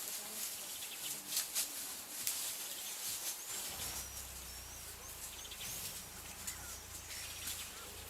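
Natural bush ambience: a steady high hiss of insects with a few short bird chirps near the middle. A few sharp clicks come early on, and a low steady hum starts about halfway through.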